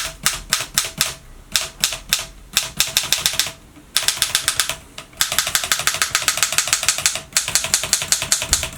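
Typing on a 1937 Erika M portable typewriter: fast runs of light, crisp keystrokes, about ten a second at the fastest, each typebar snapping against the platen, with two short pauses in the middle.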